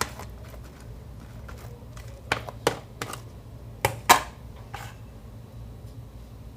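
Bubblegum-type slime worked by hand, giving off sharp bubble-pop clicks, a few of them in quick pairs in the middle.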